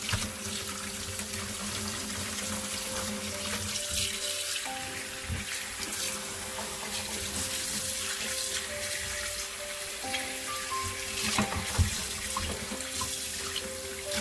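Kitchen tap running into a stainless steel sink while a whole fish is rinsed and cleaned by hand under the stream, with a single knock about three-quarters of the way through. Quiet background music plays under the water.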